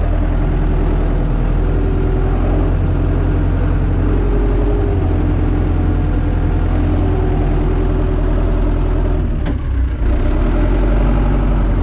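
Renault 651 tractor's diesel engine running steadily as the tractor drives along, a loud low drone. About nine and a half seconds in there is a brief click and dip in the sound.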